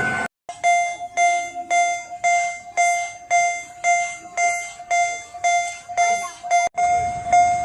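Miniature railroad crossing bell ringing its steady 'kan-kan' warning, a bright ringing tone struck just under twice a second, starting after a split-second gap.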